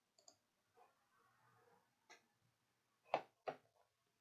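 Computer mouse clicking twice, about three seconds in, with a few fainter ticks before; otherwise near silence.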